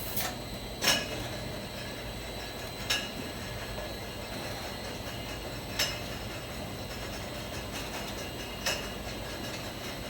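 Bottling line machinery running with a steady hum, with glass bottles clinking sharply every few seconds.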